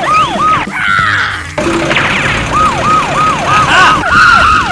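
Siren wailing up and down quickly, about three cycles a second, in two runs broken by a gap of about two seconds, over background music.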